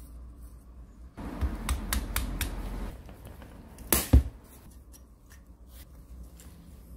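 Handling noises from old jackhammer parts on a workbench: a second or two of rubbing and scraping with a few sharp clicks, then one heavy knock about four seconds in.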